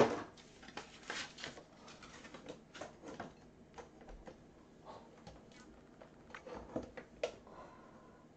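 Plastic trading-card holders being handled and set down on a table: scattered light clicks and taps, with a sharp knock at the start.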